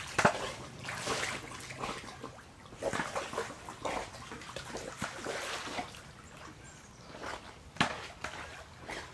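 Pool water splashing and sloshing as swimmers move through it, in irregular splashes, with a sharper splash about eight seconds in.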